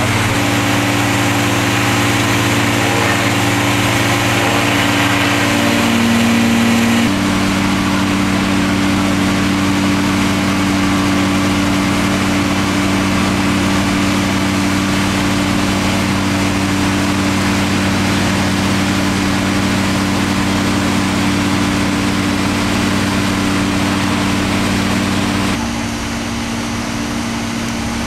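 Heavy engines of salvage machinery running steadily at an even pitch, a constant low drone. The drone changes abruptly about seven seconds in and again near the end, where it gets a little quieter.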